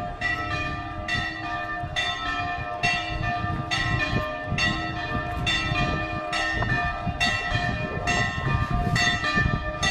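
Church bells ringing in a steady peal, a new strike about every two-thirds of a second, each one ringing on into the next.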